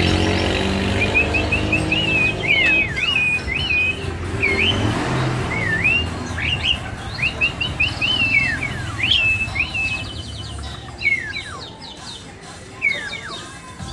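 Asian pied starling (jalak suren) giving a run of whistled calls: quick looping notes and several long downward-slurring whistles. A low engine rumble fades out in the first few seconds.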